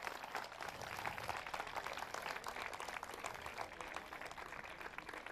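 Crowd applauding, a dense patter of many hands clapping, thinning slightly near the end.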